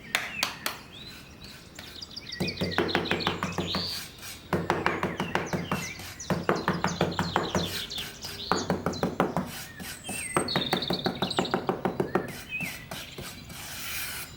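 Birds chirping, over several bursts of rapid tapping, about ten taps a second, each burst lasting one to two seconds with a low hum beneath it.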